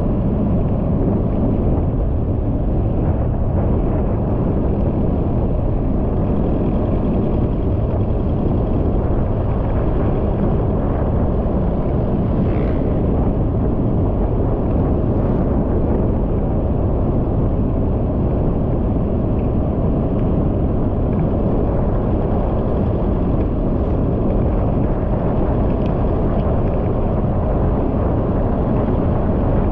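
Steady wind and road noise of a vehicle driving at about 45–50 km/h, a low even rush without a clear engine note.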